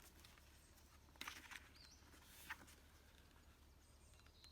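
Near silence of a backyard: a few faint, short rustles about a second in and once more in the middle, with a tiny bird chirp between them.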